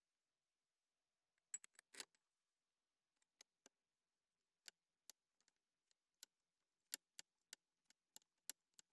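Faint, sharp metallic clicks of a long hex key turning a retaining bolt by hand on a compressor's solenoid valve: a short cluster about a second and a half in, then single clicks every half second or so.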